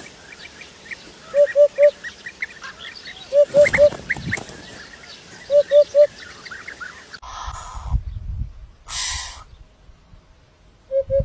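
Birds calling: a low three-note call repeats about every two seconds over a scatter of small, high chirps. About seven seconds in the scene changes abruptly and two short, noisy rushes follow before the three-note call comes back near the end.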